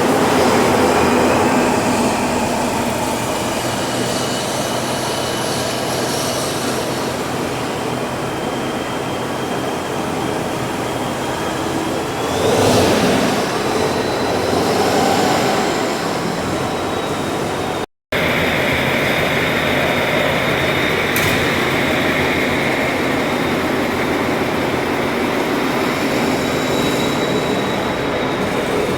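Tatra 815 6x6 truck driving, its air-cooled diesel engine running steadily under load with a high whine over it. The whine climbs in pitch about halfway through, and the sound drops out for a split second shortly after.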